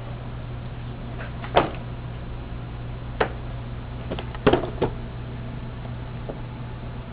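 A handful of short, sharp clicks or knocks at uneven intervals, a close cluster of them about two-thirds of the way through, over a steady low hum.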